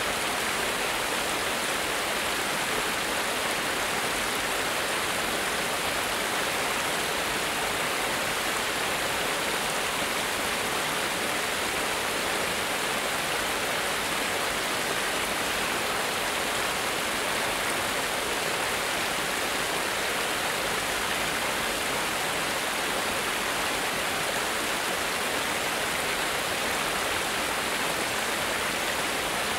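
Small cascade of water spilling down a sloped concrete weir into a stream: a steady, even rush of falling water with no change in level.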